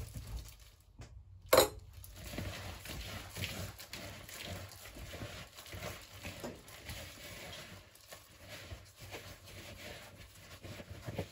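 A gloved hand kneads a sticky mix of ground peanuts and condensed milk in a plastic mixing bowl: continuous irregular squishing, with the plastic glove rustling. A single sharp knock comes about a second and a half in.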